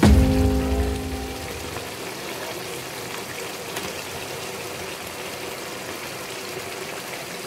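The last chord of the background song rings out and fades over about the first second and a half, leaving a steady hiss.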